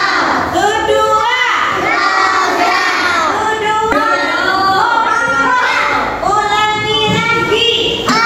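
Many children's voices singing together, with a short break about four seconds in.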